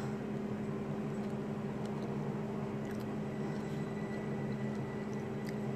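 A steady low hum of room background noise, with a few faint clicks.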